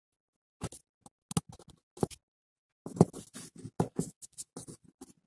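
Small clicks and scratchy handling noises as fingers work stripped wire ends into the screw terminals of an L298N motor driver board. There are a few separate ticks at first, then a busier run of clicks and rustles from about three seconds in.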